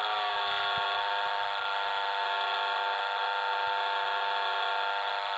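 Brushless electric motor (200 W, 900 kV) and propeller of a small RC stick plane running in flight: a steady, high whine of many even tones, its pitch nearly constant.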